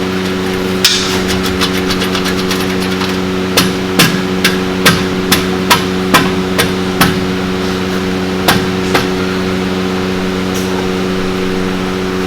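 Hammer blows while adjusting an exhaust pipe's height: a quick run of light taps, then a series of sharp strikes about two a second, and two more a little later, over a steady hum.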